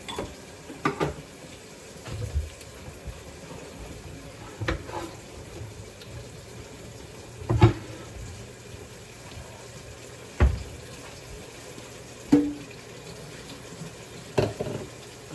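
Kitchen hot-water tap running steadily, left on to run until the water comes hot. About eight sharp knocks and clatters sound over it at irregular intervals, the loudest about halfway through.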